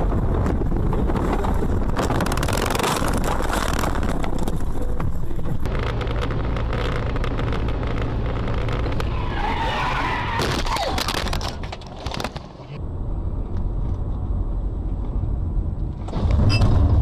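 Dashcam sound from inside moving cars: a steady low rumble of road and engine noise, with a brief tyre squeal about ten seconds in and a loud burst of noise near the end, the sound cutting abruptly from one clip to the next.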